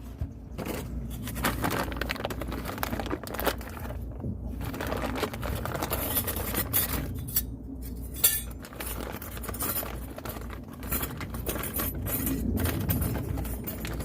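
Small metal brake parts and tools clinking and rattling as they are handled and set down, in many irregular taps, over a steady low hum.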